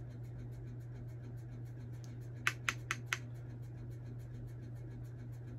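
Four quick, light clicks of small hard objects tapping together, all within under a second about two and a half seconds in, over a steady low hum.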